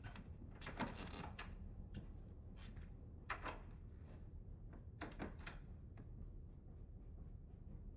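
Quiet room over a low steady hum, with three brief groups of soft knocks and thuds: about a second in, about three and a half seconds in, and about five seconds in.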